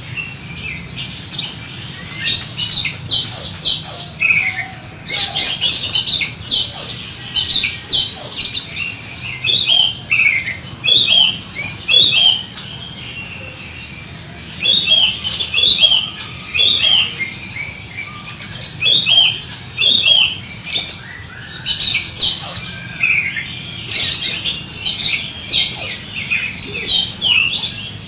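Oriental magpie-robin (kacer) singing a fast, varied song of harsh, rough phrases, in runs of quick high notes with short pauses about five seconds in and again around thirteen to fourteen seconds.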